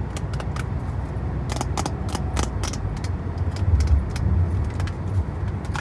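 Fingernails clicking and picking at a squishy toy's plastic packaging, a quick run of sharp clicks, over a steady low rumble.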